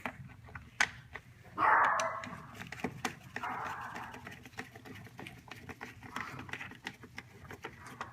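A dog vocalising a few times, the loudest sound coming about a second and a half in, amid scattered light clicks and knocks.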